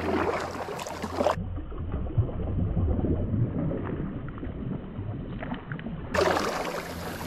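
Water lapping against a plastic kayak hull under a low steady rumble. The sound turns dull and muffled for about five seconds, from about a second in.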